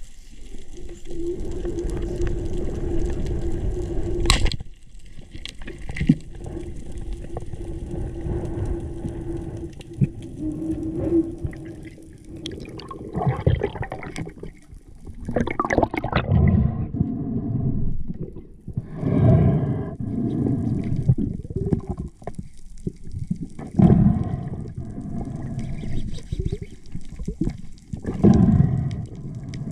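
Underwater sound picked up by a diver's camera: water rushing and sloshing in irregular surges, a steady hum through the first part, and one sharp click about four seconds in.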